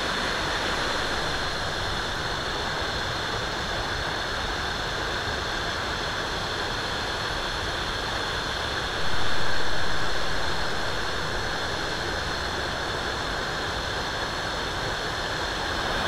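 Steady rushing of a waterfall dropping off a cliff into a rock pool, swelling louder for a few seconds about nine seconds in.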